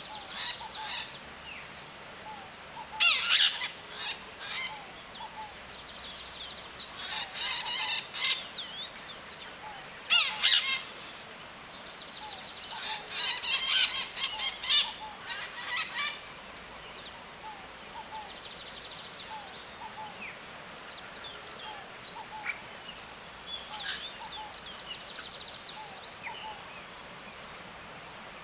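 A flock of white-eyed parakeets (maritacas) screeching in loud, harsh bursts a few seconds apart, then chattering more faintly in the second half.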